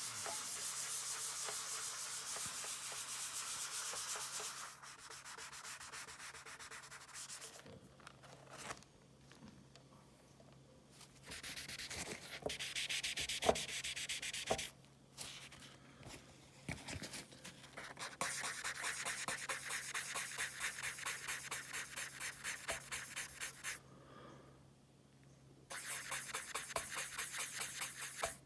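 Hand sanding of a painted car part with a sanding sponge: rapid back-and-forth rubbing strokes in several bouts, with short pauses between them.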